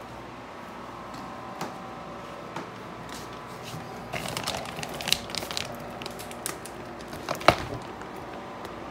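Clear plastic wrap on flat-packed furniture crinkling and crackling as it is handled: scattered clicks, then a thick run of crackles from about four to six seconds in and one sharp crack about a second before the end, over a steady low hum.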